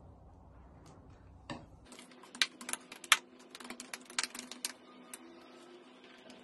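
Scattered light plastic clicks and taps from small skincare bottles being handled and opened while toner and lotion are applied, coming quickly one after another for a few seconds, with two sharper clicks among them.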